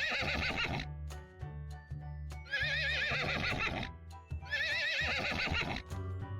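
A horse whinnying three times, about two seconds apart, each neigh with a quavering, shaking pitch, over background music with a steady bass.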